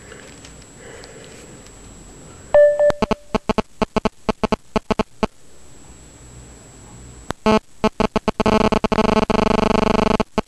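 GSM interference from a mobile phone's radio, picked up by the recording: a short tone about two and a half seconds in, then irregular sharp clicks for a few seconds, and near the end a dense, rapid buzz. The phone has just been switched on and is registering on the network.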